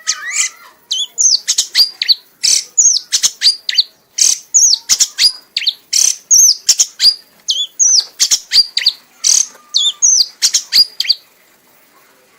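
Red kanis songbird singing in a frenzied fit, repeating a short high phrase, a hooked whistle then a flat note, about twice a second, and stopping shortly before the end.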